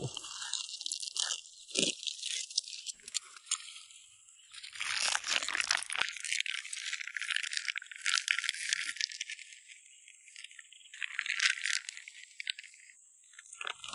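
A plastic bait bag crinkling and crackling as fishing corn is tipped out of it into a keepnet, in several spells of crackle.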